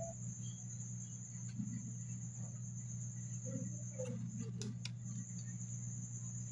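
Faint clicks and small taps from handling a gas stove's igniter wire and its terminal on the metal bracket, mostly near the middle, over a steady low hum and a steady high-pitched whine.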